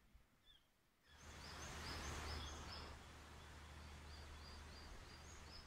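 Near silence for about a second, then a steady outdoor hiss with a low rumble, over which a bird calls in a run of short, high chirps repeated at an even pace.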